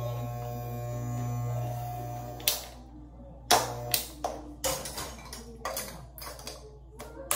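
Electric beard trimmer buzzing steadily, cutting out about two and a half seconds in. A run of sharp clicks and taps follows, and the buzz comes back briefly once in the middle.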